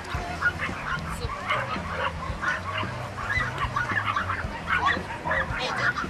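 Many dogs barking and yapping in the background: short overlapping calls that keep coming, several a second.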